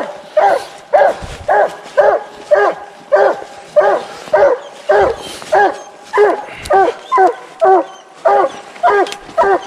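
Coonhound barking in a steady, even rhythm of about two loud barks a second, the repeated chop of a hound barking up a tree.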